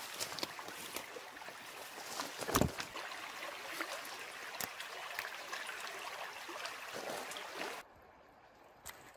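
Water trickling and sloshing, with scattered small clicks through it. It cuts off abruptly near the end, leaving a much quieter background with one more click.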